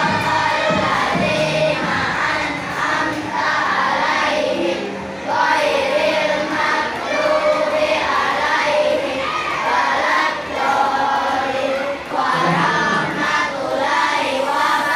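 A group of children singing together, many voices in unison with held notes.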